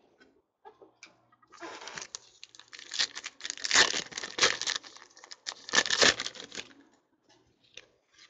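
Foil wrapper of a 2014 Panini Prizm trading-card pack being torn open and crinkled by hand, a rough rustling that starts about a second and a half in, peaks twice around the middle, and dies away near the end.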